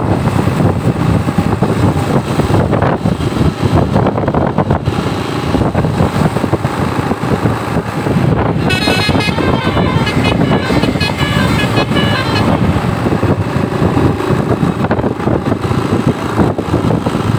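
Loud, continuous road and engine noise. About nine seconds in, a bus's Basuri telolet horn plays a quick run of melodic notes for about four seconds.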